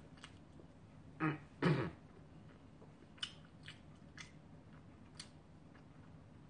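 A person chewing a mouthful of food, with soft wet mouth clicks and smacks spread through. Two short vocal sounds, like a throat-clearing hum, come just over a second in.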